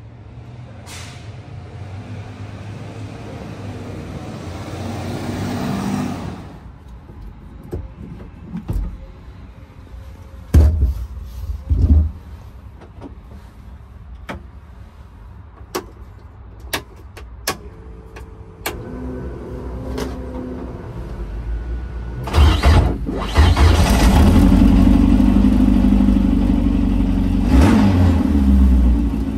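Rear-mounted four-cylinder engine of a 1970 Alpine A110 1600S rally car. First comes a swelling rush of noise that cuts off about six seconds in, then scattered clicks and knocks. About 22 seconds in the engine catches and runs loudly, with a few throttle blips near the end.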